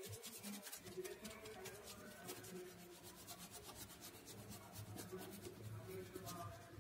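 Wet wipe rubbing back and forth over a glass-top stove: faint, quick, repeated scrubbing strokes.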